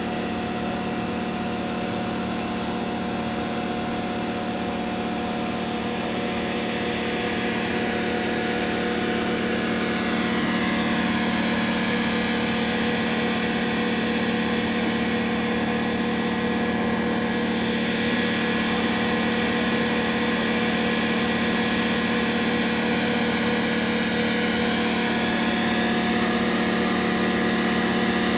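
A steady mechanical hum with an even pitch, like an idling engine, that runs throughout and grows a little louder about ten seconds in.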